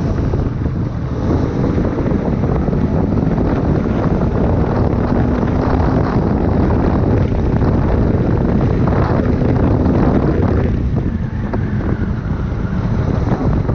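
Wind buffeting the microphone on a moving motorcycle, with the engine running underneath.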